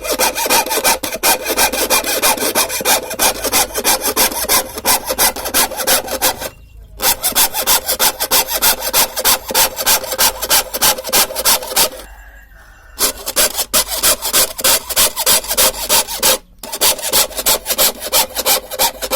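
Hand saw cutting through wood in quick, even back-and-forth strokes, about three to four a second. The sawing stops briefly three times: about a third of the way in, for about a second past the middle, and briefly near the end.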